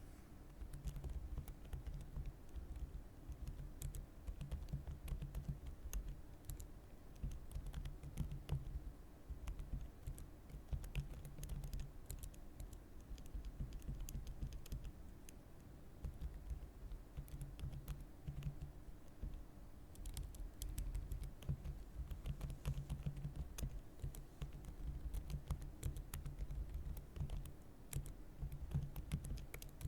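Typing on a computer keyboard: a steady run of irregular key clicks, easing briefly about halfway through and again a little later.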